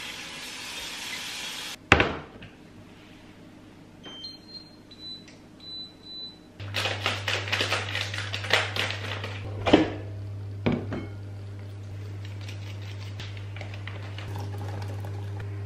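A kitchen appliance's control panel beeps a few times, then a steady low electric hum starts as it begins running. Cookware clatters and knocks over the hum.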